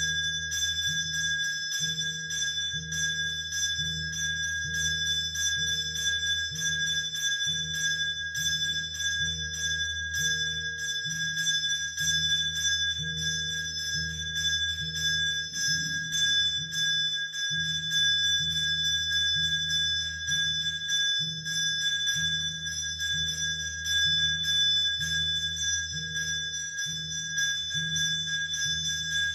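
Temple bell rung continuously during arati, its high ringing tones held steady without dying away, over a low rhythmic pulsing beat a little faster than once a second.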